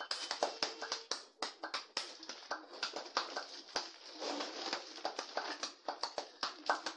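Gift wrap crinkling and tearing as a present is unwrapped: a dense run of irregular crackles and clicks.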